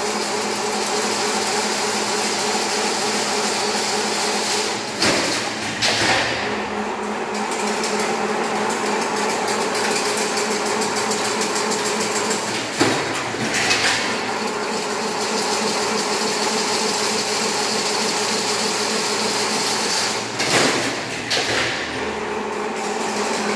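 Chain link fencing machine running with a steady mechanical hum and whirr, broken by a pair of sharp clacks about every seven to eight seconds.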